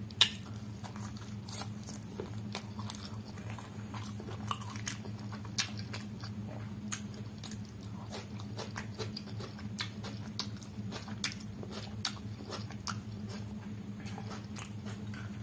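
Close-miked eating sounds of chicken curry and rice: irregular wet chewing smacks and mouth clicks, with a sharp click just after the start, over a steady low hum.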